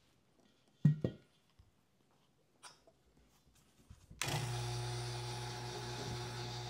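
Two sharp knocks about a second in. At about four seconds a single-stage vacuum pump switches on and runs steadily with a hum and a hiss, drawing a vacuum on the epoxy in the chamber to degas it.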